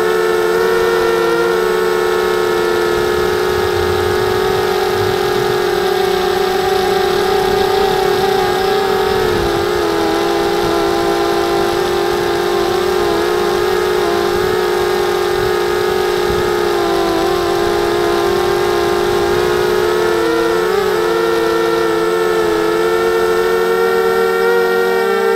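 250-size FPV quadcopter's brushless motors and propellers whining steadily, picked up close by the onboard camera. Several tones run together, and their pitch wavers and briefly dips and rises again near the end as the throttle changes.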